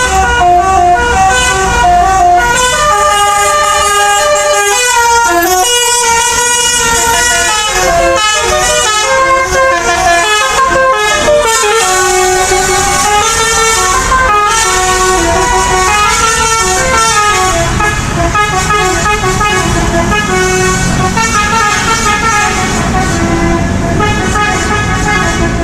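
Bus telolet horn: a multi-tone air horn playing a stepping tune of several notes sounded together, over and over, loud. A bus engine's low rumble runs underneath at the start and again in the last few seconds.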